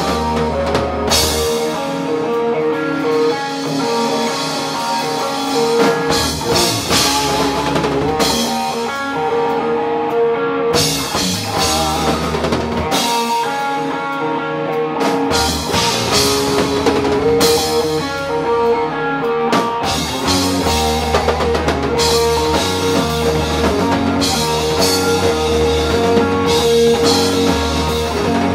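Live rock band playing through a bar PA: electric guitar over drum kit and bass, in a stretch without singing. The deep low end drops out for several stretches and then comes back in full for the last third.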